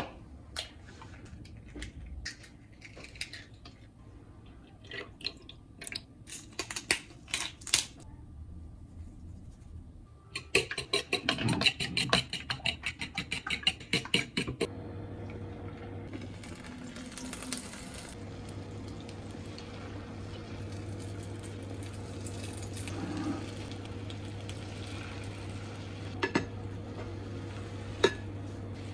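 Eggs tapped and cracked into a bowl, a few scattered clicks. Then a fork beats them briskly against the bowl in a fast run of clinks for about four seconds. After that an induction hob gives a steady low hum while the egg cooks in a frying pan, with a couple of spoon taps on the pan near the end.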